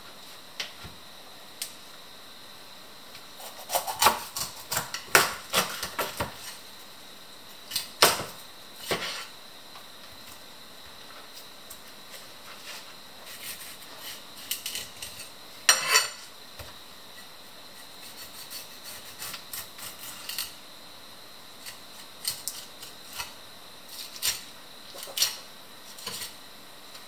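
Scattered knocks, taps and scrapes of a whole raw fish and kitchen things being handled on a plastic cutting board, with clusters of louder clatter a few seconds in, near the middle and near the end. A faint steady high tone sits underneath.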